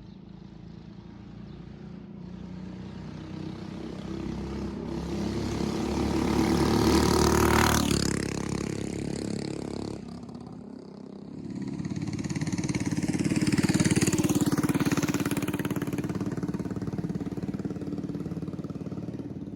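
Moped engine fitted with a new Mikuni carburetor, running under throttle while being ridden. It builds and climbs for about seven seconds, drops back about eight seconds in, then picks up and climbs again a few seconds later before settling.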